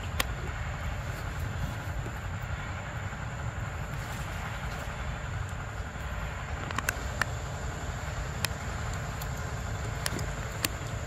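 Steady outdoor rumble and hiss, heaviest in the low end, with about half a dozen sharp clicks scattered through it, most of them in the second half.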